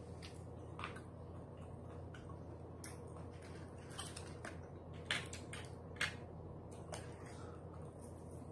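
Faint crunching and clicking as food is handled and eaten, a handful of short sharp crackles over a steady low hum.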